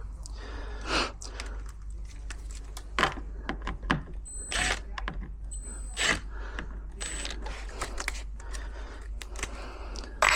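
Irregular metallic clicks, knocks and clinks of hand tools working on a door lock mechanism, a few of them ringing briefly.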